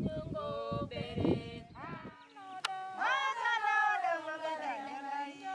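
Women's voices singing, with a long, drawn-out note that slides downward about three seconds in.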